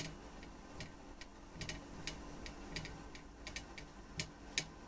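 Faint, irregular clicks and ticks from locking pliers twisting a rust-frozen percussion pistol barrel held in a vise, about fifteen in a few seconds.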